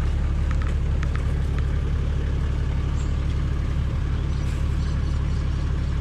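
A car driving: steady low rumble of engine and road noise.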